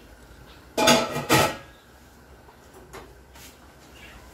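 Metal lid of an enamelware water-bath canner clanking twice against the pot about a second in, with a short ring, then a light knock.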